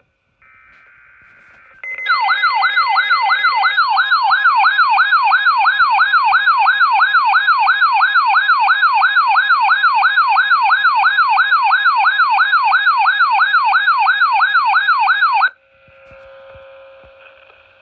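Faint EAS data-burst tones, then a loud electronic alert siren warbling rapidly up and down, about two and a half sweeps a second, that cuts off suddenly near the end. It marks the start of an Emergency Alert System Required Weekly Test received on NOAA Weather Radio.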